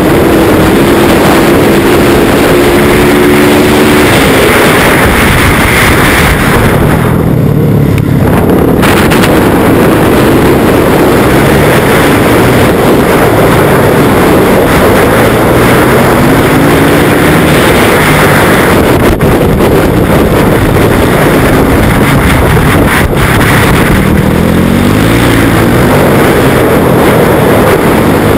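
Yamaha YZ450F's single-cylinder four-stroke engine revving hard under acceleration, its pitch climbing repeatedly through the gears, with the sound dipping briefly about seven seconds in. Heavy wind noise on a helmet-mounted camera microphone runs under the engine.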